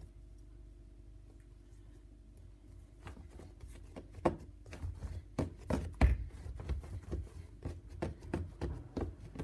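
Hands rolling and pressing a log of beetroot dough on a kitchen countertop: irregular soft thumps and rubbing that begin about three seconds in, over a faint steady hum. The rolling presses out trapped air so the two layers of dough stick together.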